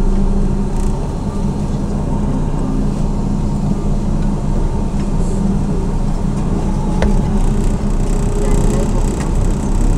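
Cabin noise of a BKM 321 electric trolleybus driving along: a steady low rumble of the wheels and body, with a faint even hum from the drive. A single sharp click comes about two-thirds of the way through.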